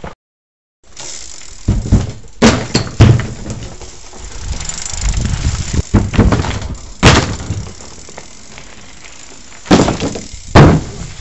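BMX bike rolling onto and over loose plywood ramps, its tyres rumbling on the boards, with loud clattering knocks as the wheels hit and drop onto the wood: a cluster of them about two to three seconds in, another around seven seconds, and two more near the end.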